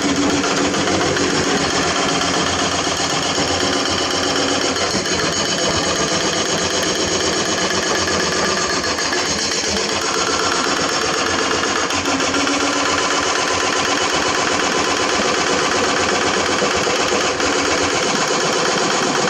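Excavator-mounted hydraulic breaker hammering hard limestone in a rapid, steady rattle of blows, with the excavator's diesel engine running underneath.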